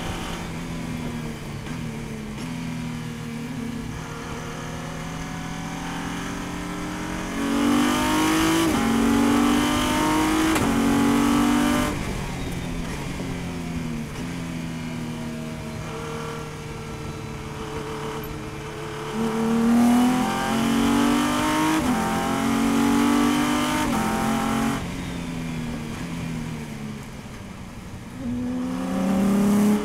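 Race car engine heard from inside the cockpit through part of a lap. Twice it accelerates hard at full throttle, rising in pitch with quick upshifts, then cuts off suddenly as the driver lifts for braking, with quieter part-throttle running through the corners between. It accelerates again near the end.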